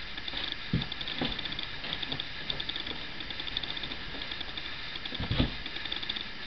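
A dog digging and pawing at a blanket inside a cardboard box to make her bed: rapid scratching throughout, with a few dull thumps against the box, the loudest about five seconds in.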